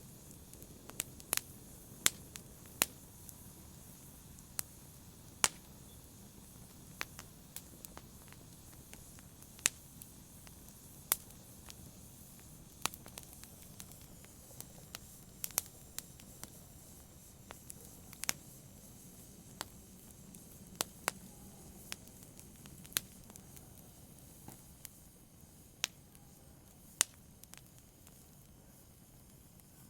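Wood fire crackling in a fireplace: irregular sharp pops and snaps, roughly one or two a second, over a soft low hiss of burning.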